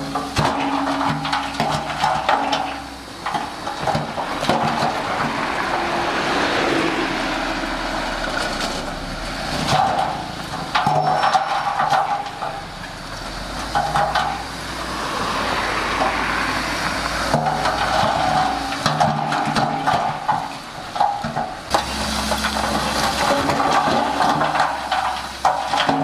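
Diesel engines running as a dump truck's hydraulic hoist raises its loaded tipper bed, with repeated hissing and scattered knocks.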